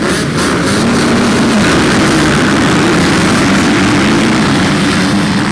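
Dirt bike engines running together at high revs, their pitch wavering up and down.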